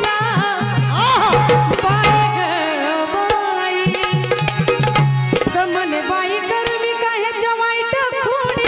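A woman singing a Marathi gavlan into a microphone, her voice wavering and ornamented, accompanied by hand drums striking in rhythm.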